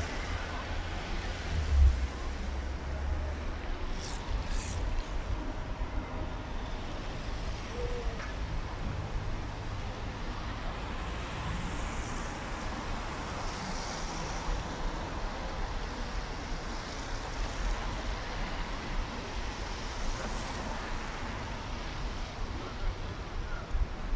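Road traffic on a wet street: cars passing with a steady hiss of tyres on wet asphalt. A vehicle passing close in the first few seconds adds a louder low rumble, loudest about two seconds in.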